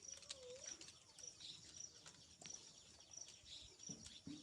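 Near silence, with faint high bird chirps repeating evenly about twice a second.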